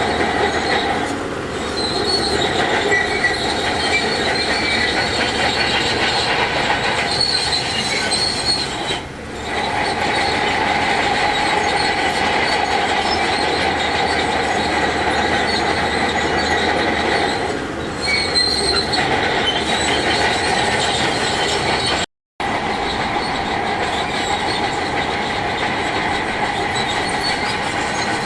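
Crawler bulldozer at work: steady diesel engine noise with continuous high-pitched squealing and squeaking of steel tracks. The sound cuts out completely for a split second about two-thirds of the way through.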